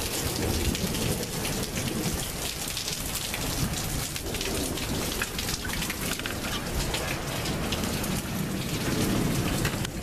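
Heavy rain pouring down, with many close drops and drips pattering, over a low rumble of thunder that swells and fades, loudest near the end.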